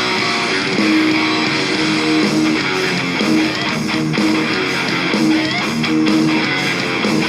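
Rock music intro: electric guitar with bass and drums playing steadily, no vocals yet.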